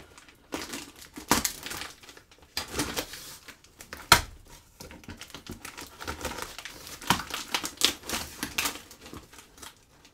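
Knife blade slicing through packing tape and cardboard on a shipping box, with the tape and cardboard crinkling. Irregular cuts and scrapes, the sharpest about four seconds in and again about seven seconds in.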